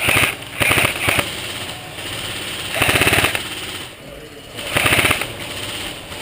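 Airsoft guns firing in short bursts of rapid full-auto shots: three close together at the start, then one about three seconds in and one about five seconds in.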